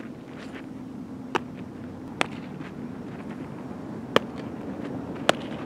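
Baseball infield practice: four sharp cracks and pops of baseballs being hit and smacking into leather gloves, the loudest two near the end, over a steady low hum.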